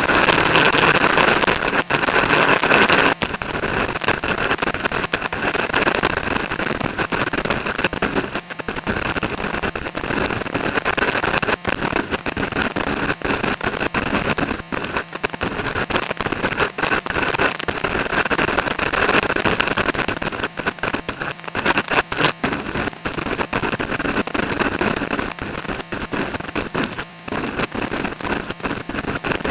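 Strong wind buffeting the microphone: a loud, uneven hiss that keeps breaking up with brief dropouts.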